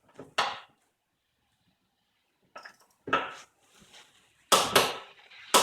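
Metal-on-metal clinks and clanks in a few short, separate strokes as a Mastercool manual A/C hose crimper, clamped in a vise, is tightened down with a wrench. The loudest pair comes about a second before the end.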